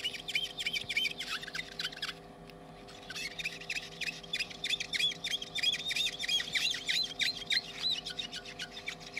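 Acetone-wetted melamine 'magic' sponge scrubbing back and forth over an iPhone 6S LCD's polariser film, squeaking quickly several times a second as it rubs off leftover OCA glue residue. The squeaking stops for about a second, roughly two seconds in, then carries on.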